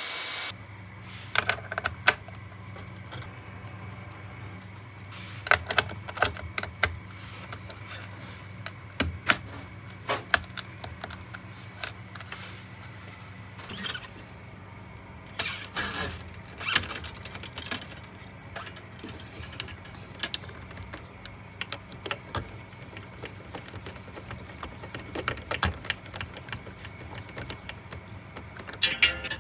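A cordless drill cuts off in the first half second; then scattered light clicks and metallic taps from handling guitar hardware and strings, over a steady low hum. Near the end comes a quick run of clicks as a string is wound onto a tuner post with a string winder.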